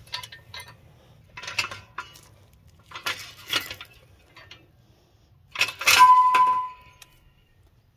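Metal clinking and clanking as a tractor's lower link arm and pin are worked into a stiff latching hitch bracket: a few short rattles, then one loud clank about six seconds in that rings briefly.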